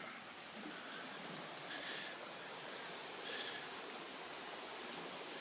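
Steady rushing of a mountain creek running high from the rain, with two brief high chirps about two and three and a half seconds in.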